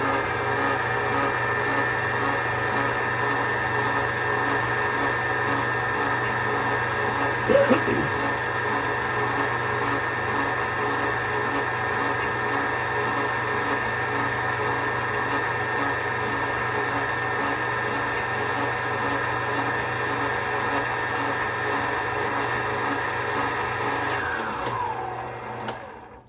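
Electric mixer running at a steady speed, mixing the dry ingredients (flour, yeast, sugar and salt) for a yeast dough, with a faint regular beat under its whine. There is one brief knock about seven seconds in. Near the end it winds down in pitch and stops.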